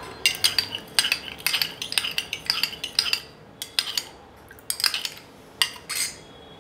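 Metal spoon stirring gelatin and water in a small porcelain bowl, clinking against the bowl's sides in quick, irregular taps with short pauses.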